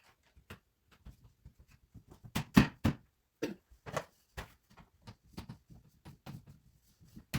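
Irregular knocks and clacks of wooden plant-stand parts being handled and fitted together during assembly, the loudest a few seconds in.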